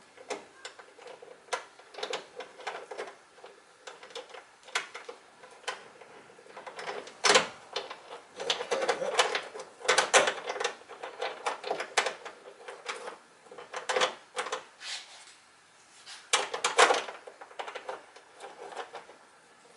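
Irregular clicking and clattering of small metal hardware and tools being handled while fitting hood gas-strut ball studs and mounts. A few louder knocks come about 7, 10 and 17 seconds in.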